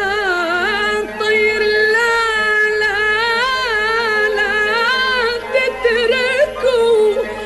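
Recorded song: a female voice sings long, ornamented notes with wavering, bending pitch over instrumental accompaniment.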